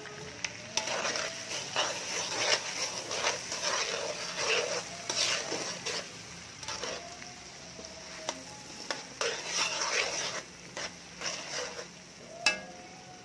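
A metal spatula stirring and scraping around a wok as garlic and onions sauté in sizzling fat, in irregular strokes. A sharp clink of metal on the wok comes near the end.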